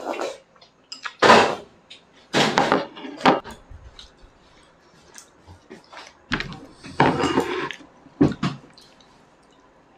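Tableware handled at a dinner table: bowls, plates and chopsticks knocking and clinking in several separate clatters, the loudest about a second and two seconds in and another cluster near the end, with quiet gaps between.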